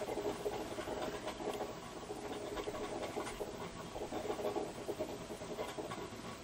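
Soft scraping and rustling of a plastic wireless headset microphone frame being handled and fitted over the ears, with small scratchy ticks as it is adjusted.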